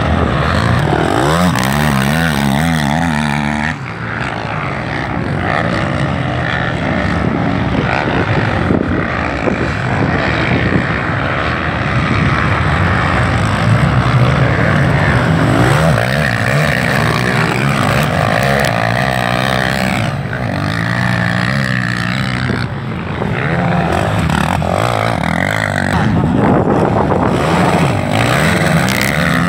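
Several racing quad-bike (ATV) engines revving hard, their pitch repeatedly rising and falling as they accelerate and back off around a dirt track; loud and continuous.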